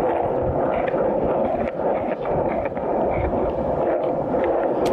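Skateboard wheels rolling fast on a paved path: a steady rolling rumble, with wind on the microphone and a few small clicks, the sharpest near the end.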